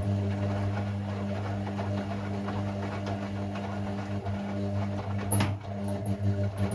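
Hoover Six Sportswear 1300 (AI130) washing machine running mid-cycle on Speed Wash, a steady mechanical hum with a brief sharp knock about five seconds in.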